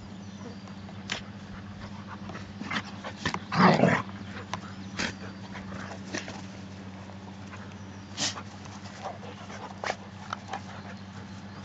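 Two dogs play-wrestling, not really fighting, making short vocal sounds throughout, with one louder, longer outburst about four seconds in. A steady low hum runs underneath.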